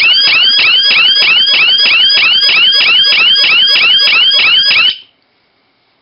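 Electronic alarm siren sounding a loud, high-pitched warble of fast rising-and-falling sweeps, about four a second, set off as the panic alarm of a keypad controller board. It cuts off suddenly about five seconds in.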